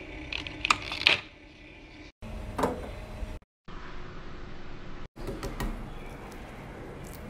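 Small handling sounds across several short cuts: sharp clicks and crackles as a plastic quail-egg tray is handled, then a steady hiss while the pan of quail eggs sits on the stove, then light clicks of quail eggshells being cracked and peeled.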